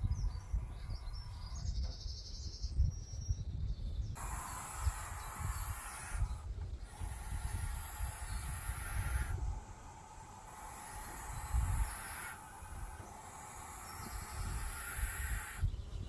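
Barn owl owlets hissing inside a wooden nest box, the defensive hiss of chicks disturbed in the nest. Long hisses of a few seconds each with short breaks begin about four seconds in, over a low rumble.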